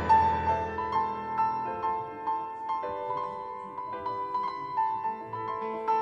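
Background music: a piano melody of separate struck notes, with one high note coming back again and again.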